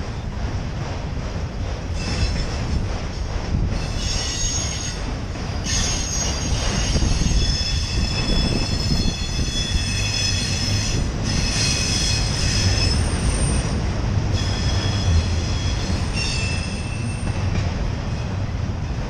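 Empty autorack freight cars rolling slowly past with a steady low rumble. Their steel wheels squeal in high-pitched, wavering tones that come and go from about two seconds in.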